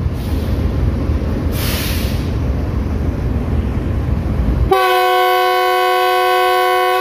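Pakistan Railways GEU40 diesel-electric locomotive standing with its engine running in a heavy low rumble, a brief hiss about a second and a half in. Nearly five seconds in it sounds its multi-tone air horn, a loud steady chord held for about two seconds until it cuts off.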